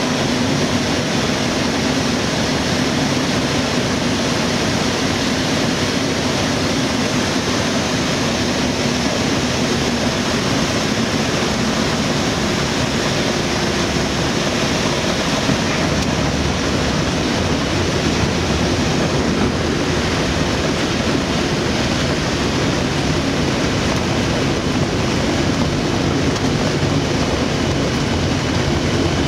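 Light aircraft's engine and propeller heard from inside the cockpit, a steady drone mixed with rushing air noise, at low landing power through the final approach and the roll along the runway.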